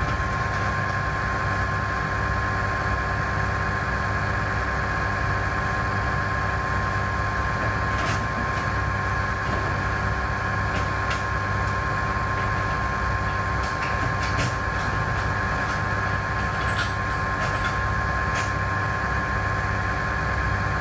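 Steady blower noise of a laminar flow cabinet running, a constant hum with a thin whine. A few small clicks and taps come in the second half as small parts are handled on the work surface.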